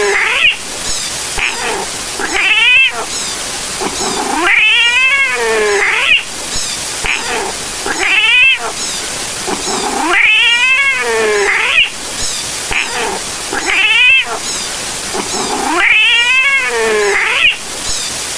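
Angry cat sound effect played over and over: a cat's yowls, each one rising and then falling in pitch, repeating every two to three seconds, over a steady hiss.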